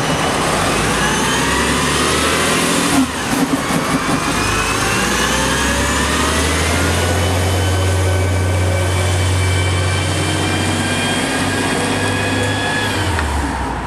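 CNG city bus pulling away from a stop and accelerating: engine and drivetrain whine rising in pitch, breaking briefly about three seconds in, climbing again, then holding steadier over a low engine drone as the bus moves off.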